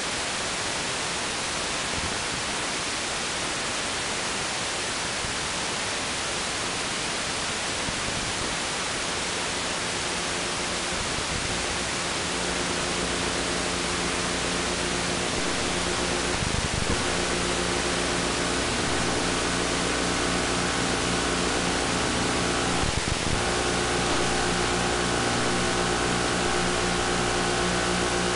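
Static hiss on an analog FPV video receiver's audio channel while the link from the plane is weak. About halfway through, a steady hum of several tones rises over the hiss as the signal clears, broken twice by short crackles.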